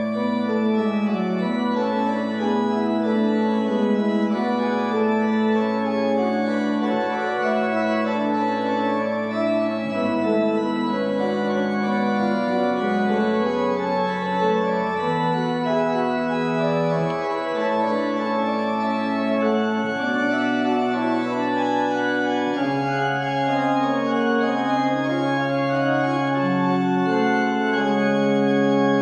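Organ playing the closing postlude after the benediction: held chords over bass notes that change every few seconds.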